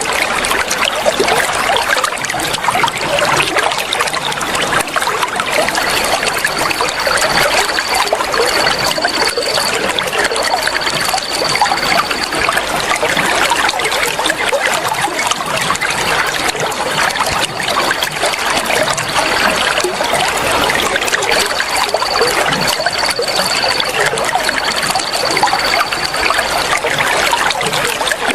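Water flowing and trickling steadily, an even running-water hiss. A thin, steady high tone comes and goes over it several times, each stretch lasting one to two seconds.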